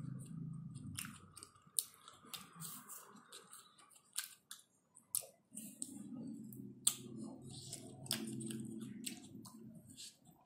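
Close-up mouth sounds of eating an ice-cream bar off a wooden stick: wet lip smacks, sucking and licking clicks. A low closed-mouth hum comes in briefly at the start and again through the second half.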